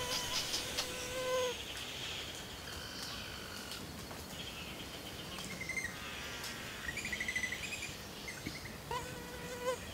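Forest ambience: a flying insect buzzes on a steady pitch for a second or so at the start and again near the end, with short rapid series of high chirps in between.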